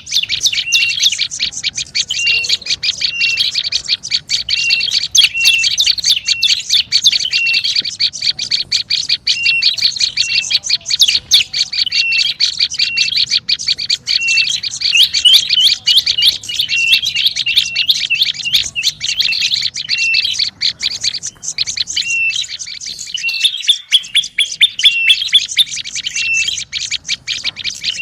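Prenjak lumut calling in a noisy, agitated chatter: a fast, unbroken run of high chirps with a short lower note repeating again and again. It is the excited call used as a lure to draw in prenjak lumut.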